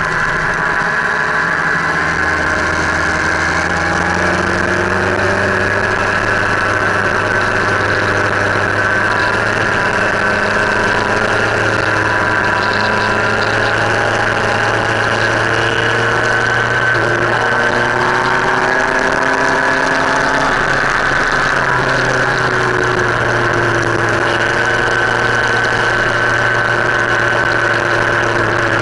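Motorcycle engine running steadily under way, heard close up from the bike itself over road and wind noise. Its pitch drifts slowly up and down with the throttle.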